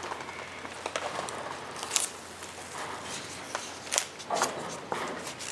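Blue masking tape being pulled off its roll, torn and pressed onto a boat hull's planking, heard as a handful of short crackling rips and taps.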